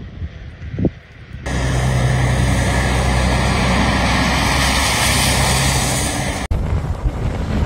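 Vehicle on a wet, slushy road: a steady hiss of tyres on water with a low engine hum. It starts suddenly about a second and a half in, after some gusty wind on the microphone, and cuts off abruptly near the end, giving way to gusty wind noise.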